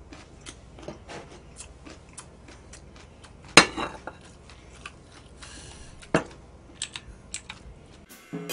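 A person eating kimbap and ramen: chewing and mouth clicks, with sharp clatters of tableware on the dishes, the loudest a little over three and a half seconds in and another around six seconds. Music starts at the very end.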